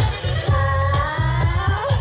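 Pop song played loud over a stage PA, with a singing voice over a heavy bass beat that pulses about twice a second.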